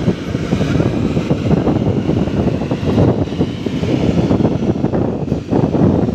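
Wind buffeting the microphone: a loud, steady low rumble that flutters irregularly.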